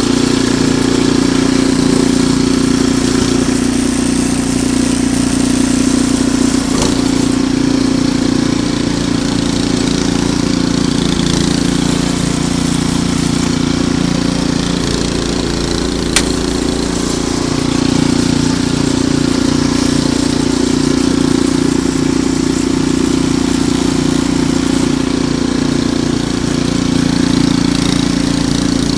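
Ariens Deluxe 28 snowblower's engine running steadily, with one sharp click about halfway through.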